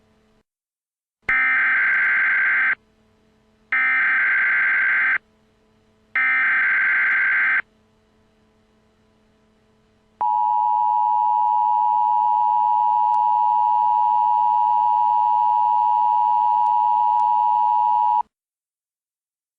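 Emergency Alert System tones: three short bursts of screeching SAME header data, each about a second and a half long, then the steady two-tone 853/960 Hz attention signal held for about eight seconds. Together they mark the start of an emergency alert broadcast.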